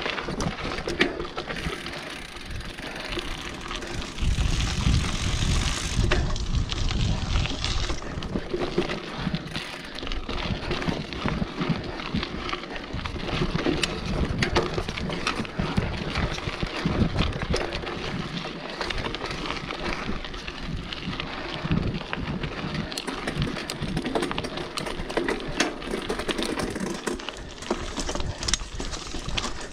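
Mountain bike descending a rocky dirt trail: tyres rolling over dirt and stones, the bike rattling and knocking over bumps. A heavier rumble of wind on the microphone comes about four to six seconds in.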